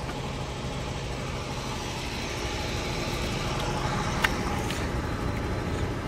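Goodman heat pump outdoor unit running: a steady mechanical hum from the compressor cabinet, with one sharp tick about four seconds in.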